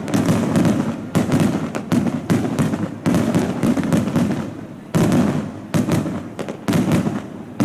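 Aerial fireworks bursting in quick succession: sharp booms every second or two, each fading off, with crackling pops in between.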